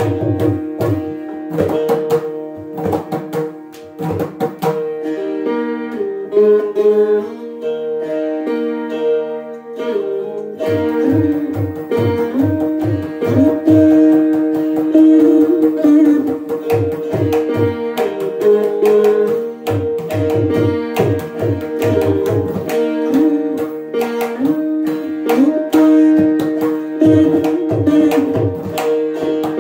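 Saraswati veenas playing a Carnatic composition, with gliding, ornamented plucked notes over a steady drone, accompanied by mridangam strokes. The mridangam drops out after about four seconds and comes back in about ten seconds in.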